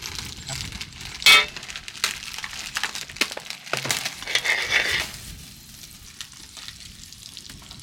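Wooden spatula scraping butter out of a plastic tub and spreading it on a hot flat griddle pan, with a sharp clink about a second in and a short sizzle as the butter melts on the pan about four seconds in.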